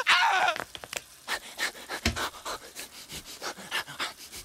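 A man's panicked cry, then rapid, frantic panting at about four breaths a second: hyperventilating in a panic.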